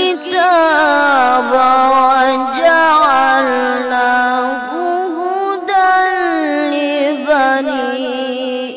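A boy's high voice reciting the Quran in melodic tilawah style, long held notes decorated with quick wavering runs.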